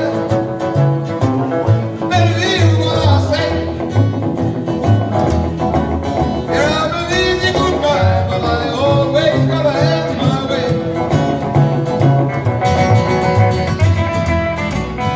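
Live band playing upbeat country-style music: guitar over a bouncing bass line.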